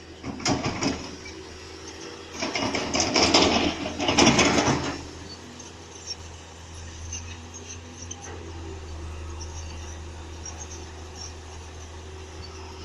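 Diesel engine of a heavy earthmoving machine running steadily, with three louder bursts of mechanical noise in the first five seconds.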